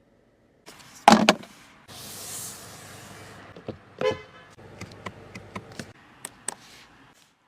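Sounds from a car: a loud thump about a second in, then a hiss lasting about a second, a short horn-like toot about four seconds in, and a string of light clicks.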